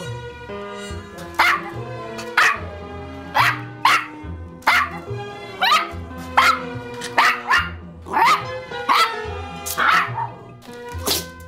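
Black kleinspitz (German miniature spitz) puppy barking repeatedly at about one bark a second, each bark short and sharp and dropping in pitch: demand barking for a ball.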